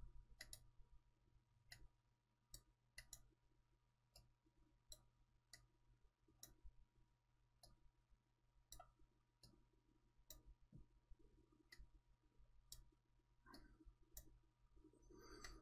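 Near silence broken by faint, irregular computer mouse clicks, roughly one or two a second, over a faint steady electrical hum.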